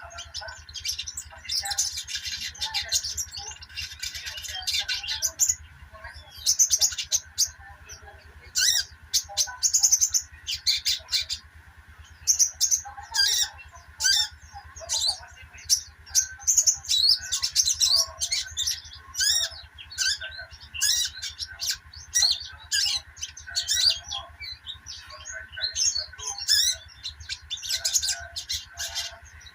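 A sogok ontong (sogon) bird chattering in its rapid 'ngeriwik' twitter: a continuous stream of quick, high chirps and trills in short bouts, over a low steady hum.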